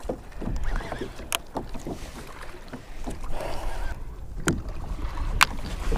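Water lapping and splashing against the hull of a plastic fishing kayak, with wind rumbling on the microphone. Three sharp clicks are scattered through it.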